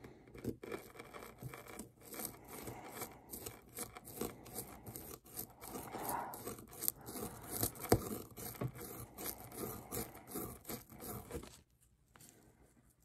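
Small plastic digging tool scraping and picking into the hard shell of a gem dig-kit ball, a quick run of scratches and small ticks that stops shortly before the end.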